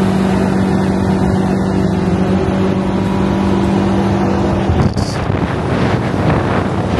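Side-by-side UTV engine droning steadily at cruising speed, with wind and road noise over the open cab. About five seconds in, the steady engine tone drops away, leaving rougher wind and road noise.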